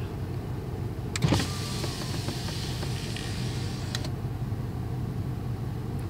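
A car's electric power window motor lowering the glass for about three seconds, starting with a click a little over a second in and stopping with a click near four seconds. A steady low hum from the car runs underneath.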